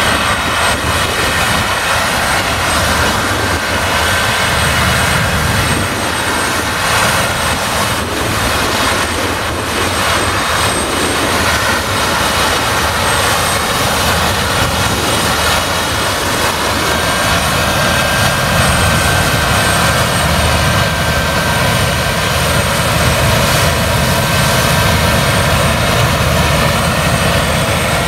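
Claas Lexion 770 TT combine harvester running under load while threshing rapeseed: a steady drone of engine and threshing machinery with a thin high whine over it. It grows a little louder in the last few seconds.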